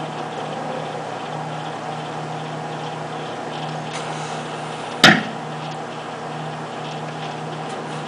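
Microwave oven running with a steady hum while a digital alarm clock overheats inside it. About five seconds in, one loud sharp crack, with a few faint crackles around it.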